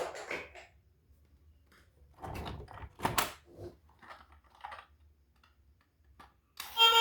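Scattered rustling, clicking and knocking of toys and their packaging being handled, in a few short bursts. Near the end, music starts abruptly.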